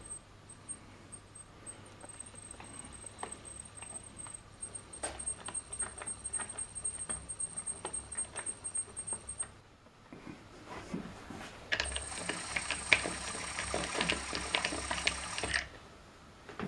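Small electric motor driving a clear plastic gear train and belt, the plastic gear teeth clicking over a steady high whine. About twelve seconds in it runs louder for a few seconds, then stops suddenly.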